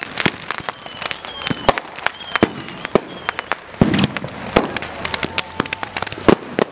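Consumer fireworks and firecrackers going off all around: a rapid, irregular string of sharp bangs and pops. There are a few short falling whistles in the first three seconds, and one heavier, deeper bang about four seconds in.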